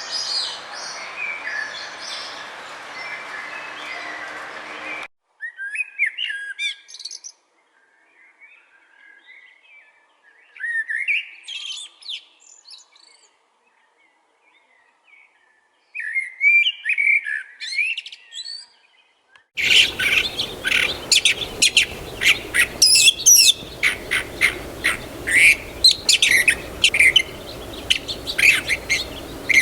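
Birds chirping, in spliced recordings: a busy mix of birdsong over a faint hum cuts off about five seconds in, then single chirping phrases come every few seconds with silence between, and from about twenty seconds a dense chorus of rapid chirps begins abruptly.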